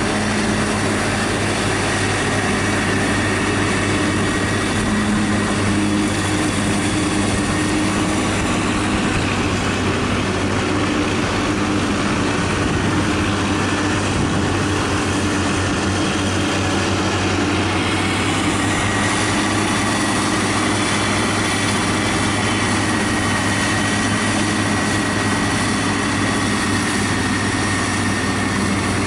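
Forage harvester and tractor engines running steadily at work while maize is chopped and blown into a trailer. The sound is a constant engine drone with a faint high whine over it.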